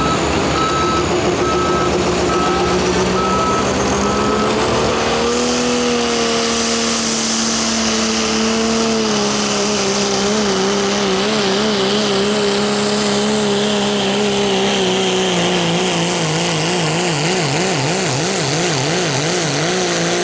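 Limited Pro Stock diesel pickup at full throttle pulling a weight-transfer sled, the engine held at a steady high pitch. The pitch steps up about five seconds in, slowly sags, then wavers up and down over the last few seconds. A repeated beeping sounds in the first few seconds.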